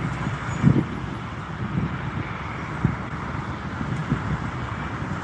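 Wind buffeting the microphone in irregular low gusts, over a steady distant hiss of engine and traffic noise.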